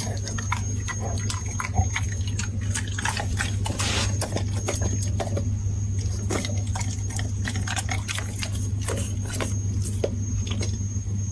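A golden retriever licking and smacking its lips and mouth after being hand-fed medicine: an irregular run of short wet clicks, several a second, over a steady low hum.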